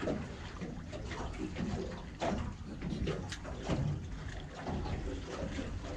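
Water lapping and sloshing against the hull of a small anchored boat, with a few light clicks and knocks scattered through it.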